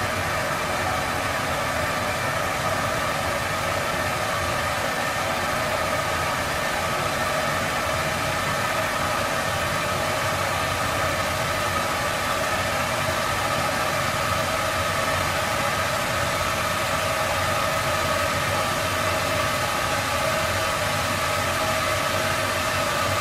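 Steady, unchanging wash of noise with several faint held tones running through it: a droning noise passage from an experimental sound-collage track.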